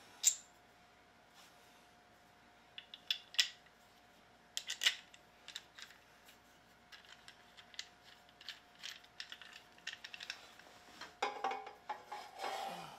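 Black keyboard-stand brackets being handled and fitted onto the stand's column: scattered clicks and knocks of hard parts, the sharpest about a third of a second in and around the middle, then many small ticks.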